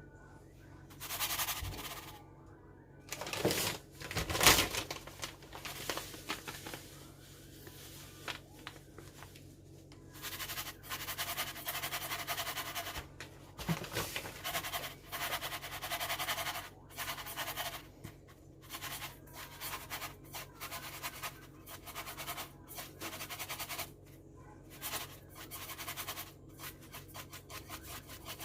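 Repeated short scraping and rustling sounds of hand work, irregularly spaced, over a faint steady hum.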